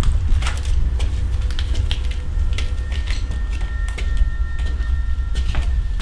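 Footsteps scuffing and crunching on a debris-strewn concrete staircase, over a low steady rumble. A few faint high held tones come in about a second in and stop shortly before the end.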